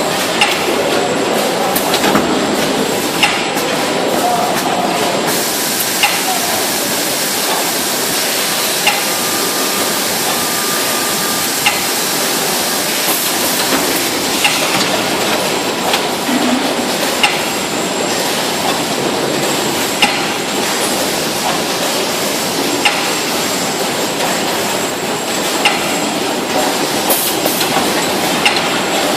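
Two-column baler running: a steady, loud mechanical noise with a sharp click about every three seconds.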